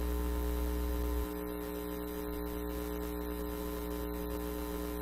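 Steady electrical mains hum from a hall's sound system, a low drone with a buzz of evenly spaced overtones. Its deepest part drops in level about a second in.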